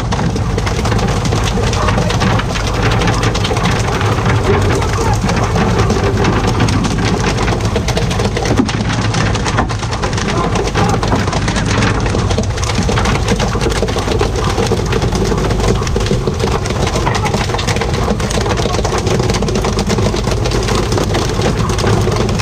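Steady hiss of water spraying and splashing on the sea surface alongside a tuna pole-fishing boat, over the boat's low, steady engine hum.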